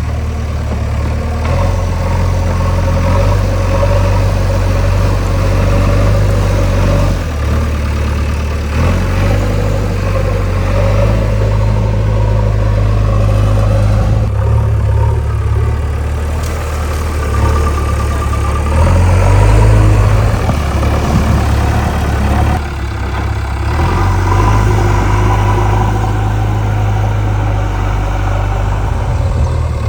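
Diesel engine of a JCB 3DX backhoe loader running, its engine note shifting several times as it works, with a brief rise in speed about twenty seconds in.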